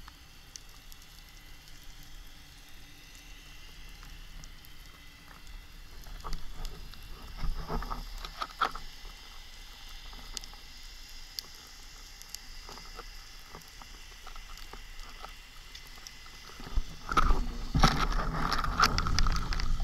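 Underwater sound through a camera housing: a faint, sparse crackle of small clicks over a low rush. A few louder knocks come a little before halfway, and near the end a louder stretch of rushing water and clicks sets in as the diver moves close to the rock.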